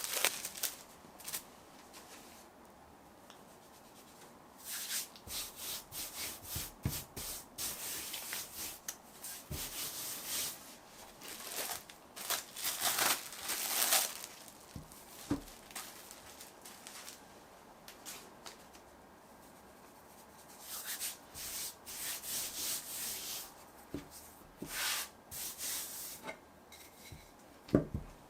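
Pie dough being worked by hand and with kitchen tools: clusters of rubbing, scraping strokes with short pauses between them, and a few soft knocks.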